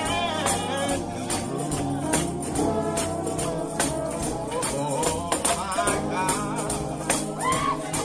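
Gospel music: singing voices and instruments over a tambourine keeping a steady beat.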